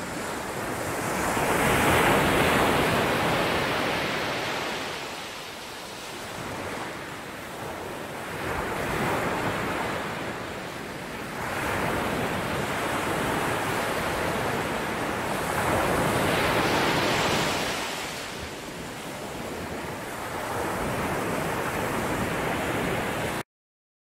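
Sea waves breaking and washing over a rocky shore, swelling and ebbing in about five surges, the loudest about two seconds in; the sound cuts off suddenly near the end.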